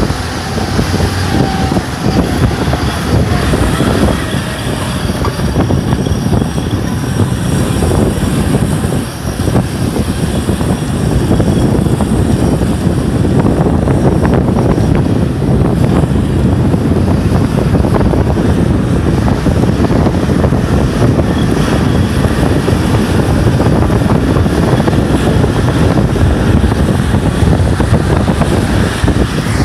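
Off-road vehicle on low-pressure tyres driving: steady, loud engine and running-gear noise, dipping briefly about nine seconds in.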